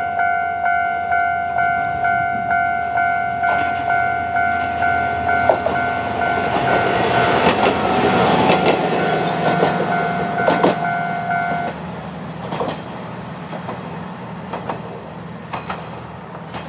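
A Japanese level-crossing alarm rings a steady, rapid ding-ding of about two and a half strikes a second while an Isumi 350 diesel railcar crosses, its wheels clicking over the rail joints. The alarm cuts off sharply about twelve seconds in, leaving the railcar's diesel engine running and a few more wheel clicks as it moves away.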